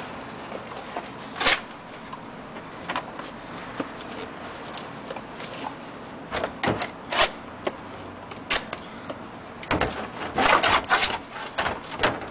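Artwork being ripped apart by hand: a few separate sharp rips and cracks, then a dense run of them about ten seconds in.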